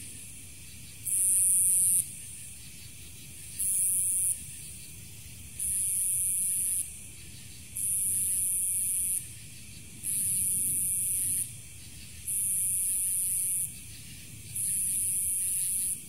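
High-pitched insect-like buzz, sold as a firefly sound effect, coming in bursts of about a second to a second and a half, one roughly every two seconds, over a faint low rumble.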